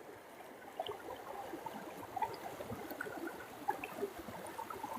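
Woodland river flowing, a faint steady babble of water with small splashes; viewers reported the phone's audio of it as muffled.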